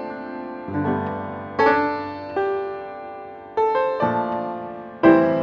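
Background piano music: chords struck about once a second, each fading before the next.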